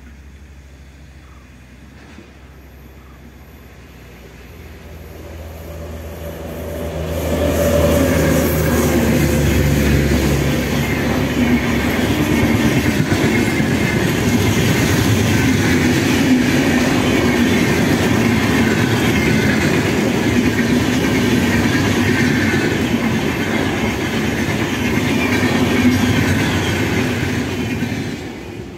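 A WAP7 electric locomotive and LHB coaches of the Rajdhani Express passing at speed. A low hum grows over the first seven seconds as the train approaches, then a steady loud rush of wheels on rail with clickety-clack over the rail joints for about twenty seconds, which falls away just before the end.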